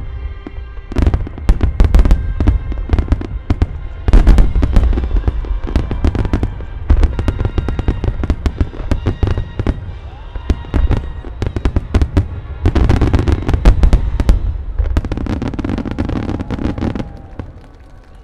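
Large aerial firework shells bursting in dense rapid volleys, deep booms mixed with sharp cracks and crackling, over a music soundtrack. The barrage thins out and fades near the end.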